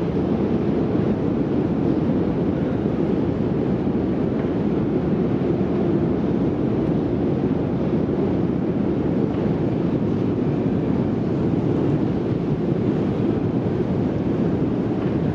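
Steady low rumble of a long metro escalator running, heard from on the moving escalator.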